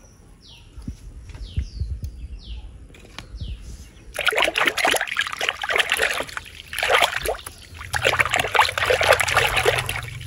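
Water splashing and sloshing as a hand rummages in a plastic tub of water, starting about four seconds in and continuing in bursts. Before that, faint short high chirps, each falling in pitch.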